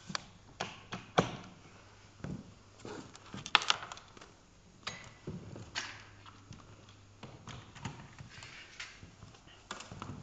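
Irregular knocks and clicks of equipment being handled on a table, over a faint steady low hum. The two loudest knocks come about a second in and about three and a half seconds in.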